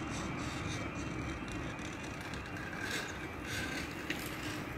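Railway level crossing warning alarm sounding steadily as the road lights show and the barriers prepare to lower, over a low steady rumble of street noise.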